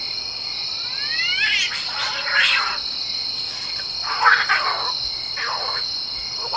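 Night-time chorus of crickets chirping steadily, with a few short animal calls breaking in over it.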